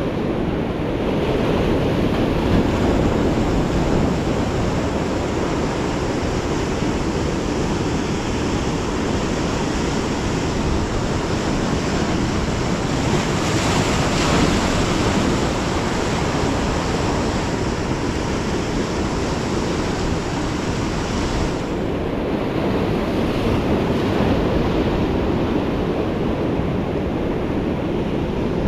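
Ocean surf breaking and washing over shore rocks in a steady rush, with wind on the microphone. One wave crashes louder about halfway through, and the hiss eases a little later.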